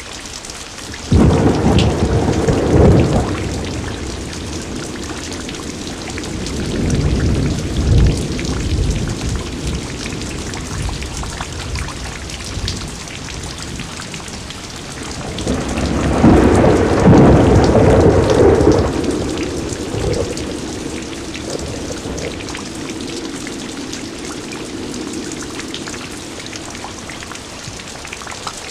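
Steady rain with thunder. A sudden clap about a second in rumbles on for a few seconds, a smaller rumble comes around eight seconds, and a long rolling peal in the middle fades away slowly.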